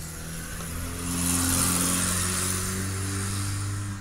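DeWalt variable-speed electric polisher running: a steady motor hum with a high hiss from the pad, swelling about a second in, then dropping off near the end.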